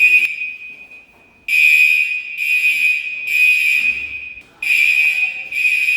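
Gentex Commander 3 fire alarm horns blaring a harsh, high-pitched steady tone in long blasts. The horn is cut off for about a second near the start and again briefly past the middle.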